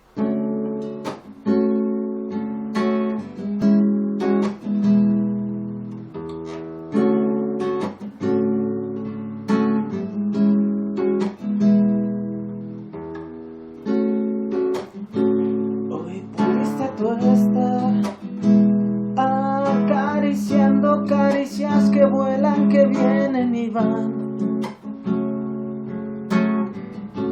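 Acoustic guitar playing an introduction: strummed chords, with a busier run of picked melody notes in the middle.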